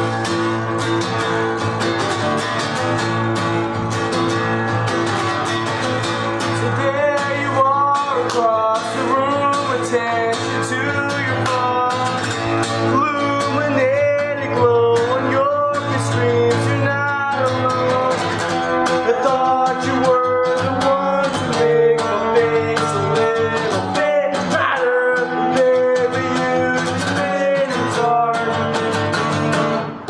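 Acoustic guitars strummed steadily in a live acoustic set, with a voice singing a melody over them from about seven seconds in.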